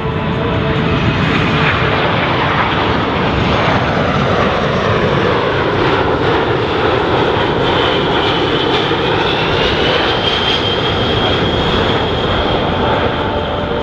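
Boeing C-17A Globemaster III's four turbofan engines running at high power as the jet passes, with a steady, loud roar whose tone sweeps down and then back up. A high whine rises about two-thirds of the way through and then holds.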